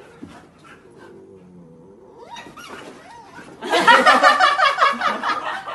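Husky puppy yelping in play while being wrestled, a loud run of rapid, high-pitched squealing yelps that starts a little over halfway through after a few quieter rising whines.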